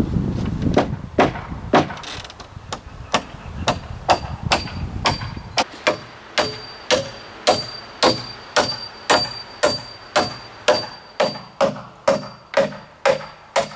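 Hammer driving 3-1/2-inch galvanized spiral nails through a steel joist hanger into a wooden joist: a long run of sharp strikes, uneven at first, then a steady pace of about two a second, with a thin high ring under the strikes in the middle.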